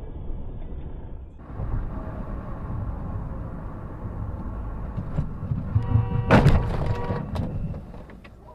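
Road noise inside a moving car, then a car horn held for about a second and a half around six seconds in, with a few sharp knocks around it.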